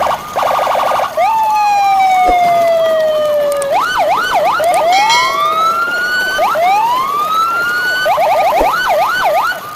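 Electronic emergency-vehicle siren sounds cycling through patterns. Fast up-and-down yelps give way about a second in to a long, slowly falling tone, then wide warbles, two slow rising wails, and fast yelps again near the end.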